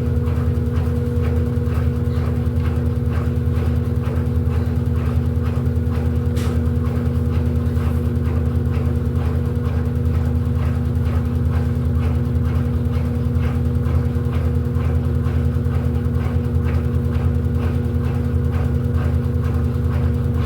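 Electrolux LED14 washing machine running its quick programme: a steady motor hum with a fast, regular pulse of a few beats a second.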